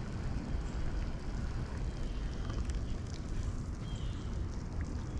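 Wind buffeting the microphone of a body-worn camera: a steady low rumble that rises and falls, with a few faint short high chirps.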